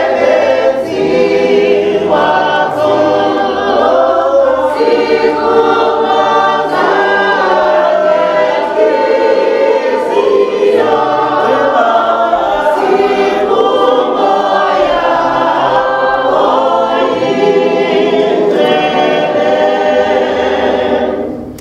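Church congregation singing a hymn together, the singing dying away near the end.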